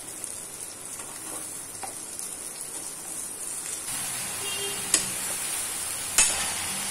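Sliced ridge gourd being tipped into a stainless steel kadai of onions frying in hot oil: a steady sizzle, with two sharp clinks of the steel ladle against the pan near the end.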